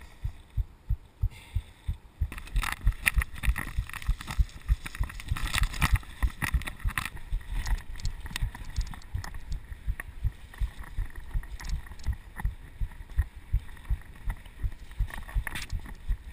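Mountain bike being ridden along a dirt trail, heard from a chest-mounted GoPro: a fast, steady run of low thumps, with a rattling clatter of the bike that is strongest from about two to seven seconds in.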